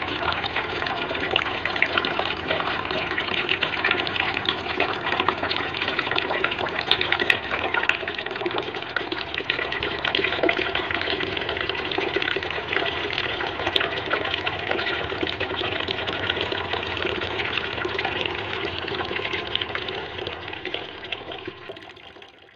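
A steady stream of water from a submersible cooler pump's hose pouring and splashing into a steel basin of water, fading out near the end.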